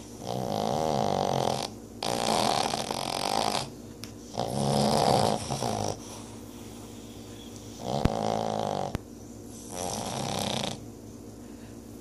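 Boston terriers snoring: five snores, each about a second long, coming about every two seconds with quieter breaths between. A brief click sounds during the fourth snore.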